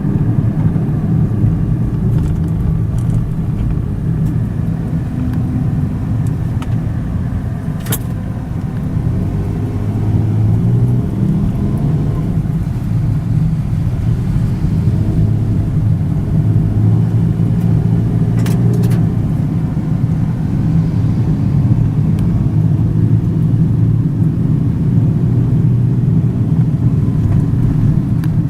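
Car driving, a steady low rumble of engine and road noise, with two sharp clicks: one about a third of the way in and another about two-thirds in.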